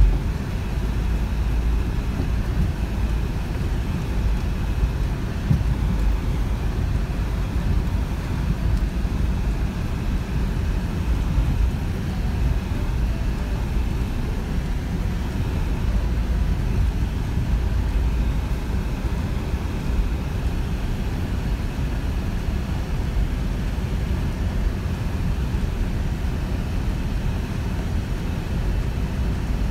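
Steady low engine and road rumble inside the cabin of a four-wheel-drive vehicle driving slowly along a rutted dirt track.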